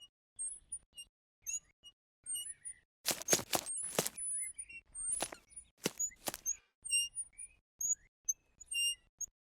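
Small birds chirping, short high notes scattered throughout. Several louder sharp clicks or knocks cluster in the middle.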